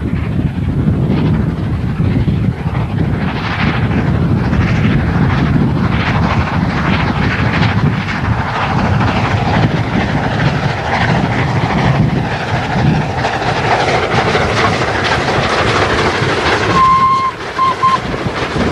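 LNER A3 Pacific steam locomotive 4472 Flying Scotsman passing close under steam: rapid three-cylinder exhaust beats over the rumble and clatter of the engine and its coaches. Near the end there is a short steady tone and two brief pips.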